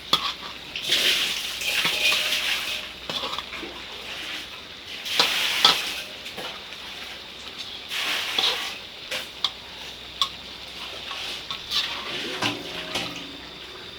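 Water splashing in several bursts of about a second each, with clinks and knocks of pots and utensils in between.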